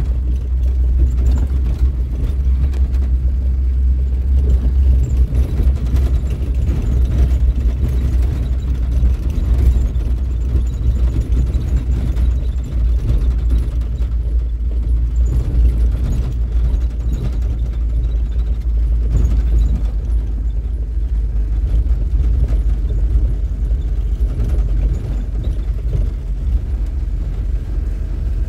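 Steady low rumble of a vehicle in motion, its engine and running noise heard from inside.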